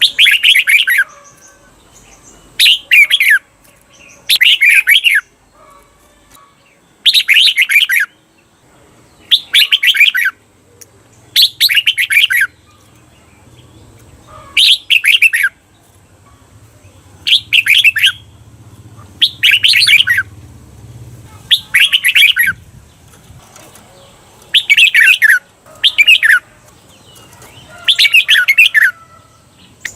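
Red-whiskered bulbul singing: loud, short warbled phrases of about a second each, repeated every couple of seconds, some following close on one another in pairs.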